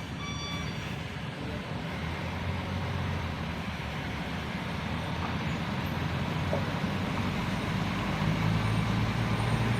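Heavy diesel engine running steadily, its low rumble growing louder over the last couple of seconds.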